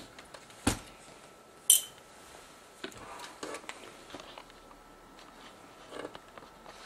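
Hands handling the plastic body of a Sony HVR-Z5 camcorder on a bench: a few sharp clicks and knocks, the two loudest within the first two seconds, with lighter taps and rustling between.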